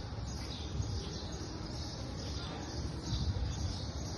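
Insects buzzing in a steady high-pitched chorus that swells and fades in patches, over a low uneven rumble.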